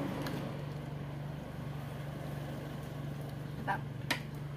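A steady low machine hum, like a motor or engine running in the background, with two light clicks near the end.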